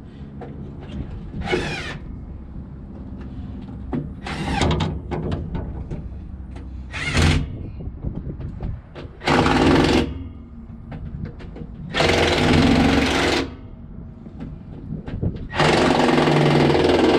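Power wrench run in three bursts of about a second each, in the second half, tightening the back-housing bolts that press a concrete pump's cutting ring onto the S-tube. Clicks and scrapes of metal parts come earlier, over a steady low hum.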